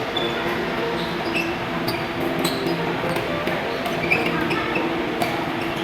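Badminton play in an indoor hall: sharp racket hits on the shuttlecock at irregular intervals and brief shoe squeaks on the court, over a steady hum of the hall.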